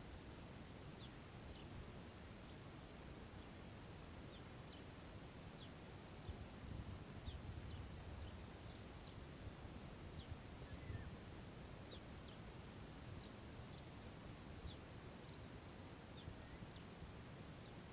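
Faint outdoor ambience: small birds chirping in short, high notes scattered throughout, over a low rumble that swells between about six and eleven seconds in.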